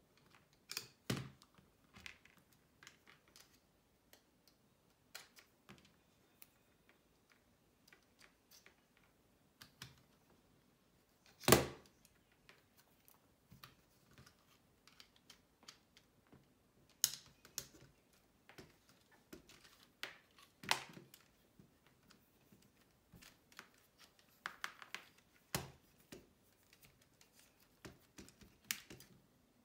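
LEGO SPIKE Prime plastic parts clicking and snapping as the hub, motor, cable and wheel are fitted together by hand, with scattered irregular clicks and one loud snap a little before halfway.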